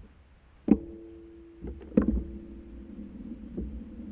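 Hollow knocks on a plastic kayak hull: two sharp loud ones about a second and a half apart, each ringing on briefly, with a couple of lighter bumps. A low steady hum carries on after the second knock.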